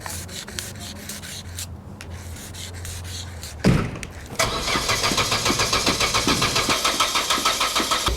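Old Opel Corsa being cranked on its starter from about four seconds in: an even, rapid pulsing that keeps on without the engine catching, as the car fails to start. Before it there is a low steady hum and one sharp loud thump.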